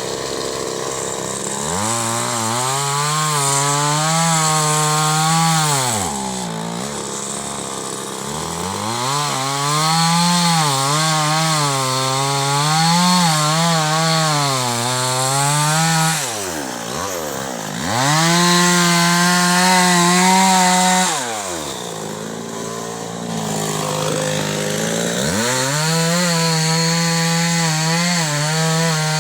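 Chainsaw cutting wood. The engine note drops and labours each time the chain bites into the wood, then climbs back to a high whine between cuts, four times over.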